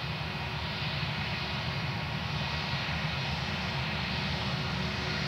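Airbus A320-232's twin IAE V2500 turbofan engines running at low thrust as the airliner rolls slowly down the runway: a steady rumble with a faint whine over it.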